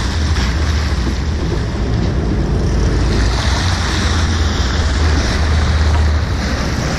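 Sea water splashing and rushing against a sportfishing boat's hull over a steady low rumble from the boat, with wind buffeting the microphone.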